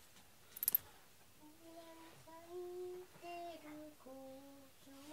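A voice softly singing a slow tune in held notes that step up and down, starting about a second and a half in. Just before it, a quick cluster of sharp clicks.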